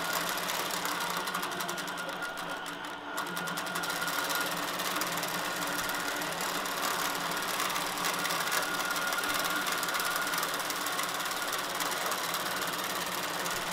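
Innova longarm quilting machine stitching under computer-guided autopilot, resuming its pattern after a thread break: a steady mechanical running with a faint whine, easing slightly for a moment about three seconds in.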